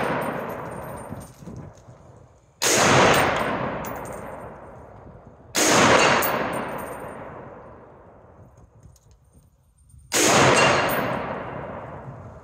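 Three shots from a POF AR-pattern semi-automatic rifle in .308 Winchester, fired a few seconds apart, each trailing off over a couple of seconds. The tail of a shot fired just before fades out at the start.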